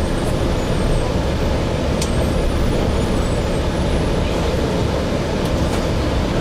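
Gillig Phantom transit bus with a Voith transmission, heard from inside the cabin: steady engine and drivetrain noise, heaviest in the low end, with a sharp click about two seconds in.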